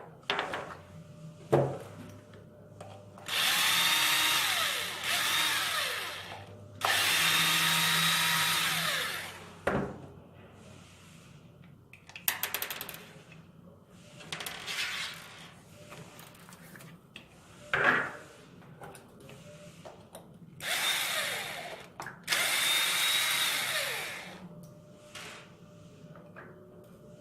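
Cordless electric driver running in several runs of a few seconds each, backing out the small screws that hold the stock front bumper and brace of an RC truck. Its motor whine drops in pitch as each run winds down, with small clicks in between.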